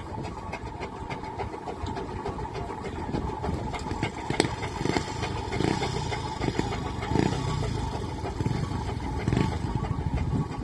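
Fowler steam ploughing engine at work: steady mechanical running with a held tone, uneven surges and a few sharp knocks.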